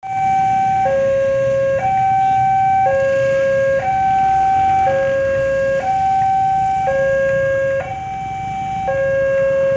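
Railroad level-crossing warning alarm sounding: an electronic two-tone signal that alternates between a higher and a lower note about once a second, the warning that a train is approaching the crossing.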